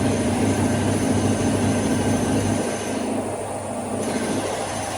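Steady mechanical running drone with a low hum, which eases a little about two and a half seconds in.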